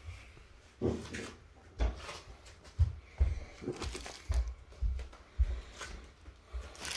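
A series of irregular soft thumps and knocks, about one or two a second, with light rustling between them.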